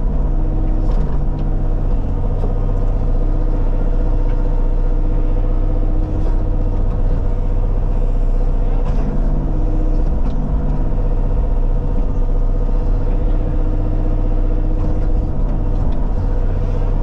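Diesel engine of a Bobcat compact earthmoving machine running steadily under working load, with a few faint knocks.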